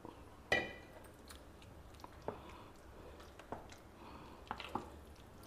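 Steel spoon mixing curd into cooked rice in a stainless steel bowl: soft wet squelching, with a few clinks of the spoon against the bowl. The first clink, about half a second in, is the loudest and rings briefly.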